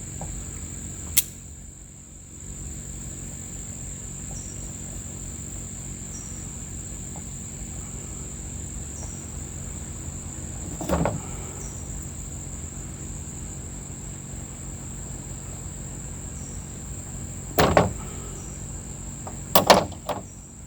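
Crickets chirping steadily in the background, with a few sharp clicks and knocks from hand work on the chainsaw's starter: one about a second in, one around the middle, and two near the end.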